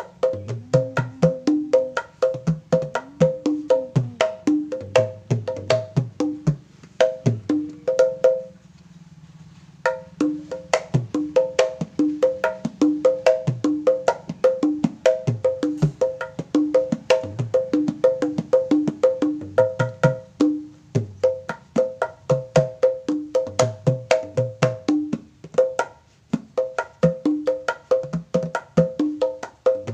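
Hand drumming on a set of kempul drums: a pair of blue conga-style kempul with rawhide heads not yet fully settled in, played with a lap-held drum that gives the deeper strokes, in a steady, quick rhythm. The playing stops for about a second and a half roughly a third of the way in, then goes on.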